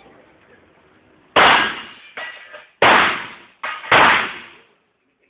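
Revolver firing: three loud shots about a second and a half apart with two fainter reports in between, each ringing out briefly.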